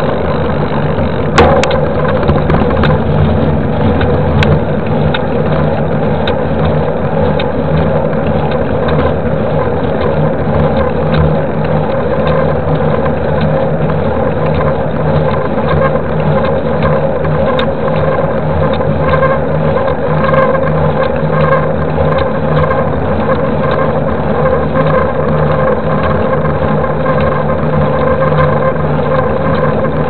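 Steady wind and tyre road noise from a 29-inch mountain bike rolling along asphalt, picked up by a camera mounted on the bike, with a sharp knock about a second and a half in.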